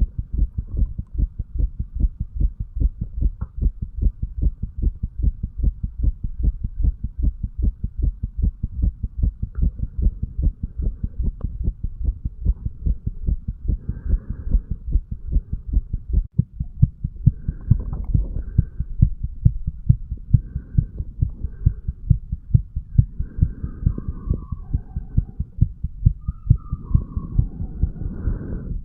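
A man's heartbeat picked up against his chest: a steady, regular lub-dub of low thumps, first over the tricuspid valve area. About halfway through the beat breaks off for a moment as the pickup moves to the mitral valve area, then carries on with some faint extra noise around it.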